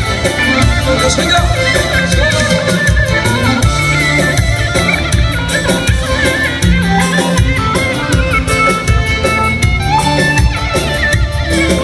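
Live band playing Assyrian folk dance music: Korg keyboards carrying an ornamented, wavering lead melody over a steady, fast electronic drum beat.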